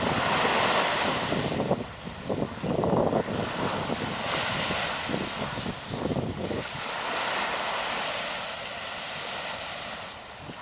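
Sea waves washing in and out in repeated surges, with wind rumbling on the microphone. The wash and the rumble ease off after about seven seconds into a softer, steady hiss.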